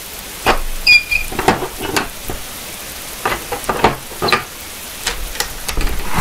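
Door-opening sound effects in an audio drama: a string of irregular clicks and knocks as locks, latches and bolts are undone, with a brief high squeak about a second in and a low thud near the end.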